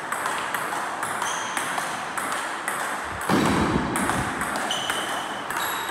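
Table tennis rally: the celluloid ball clicking in quick alternation off the paddles and the table, several strokes ringing briefly. A louder noise rises for a moment about three seconds in.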